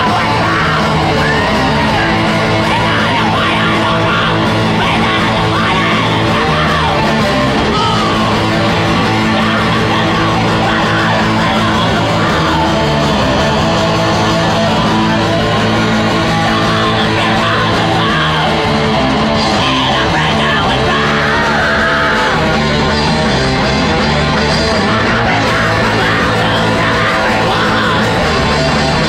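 Live death metal band playing at full volume: heavily distorted electric guitar and bass over a drum kit, with yelled vocals at times.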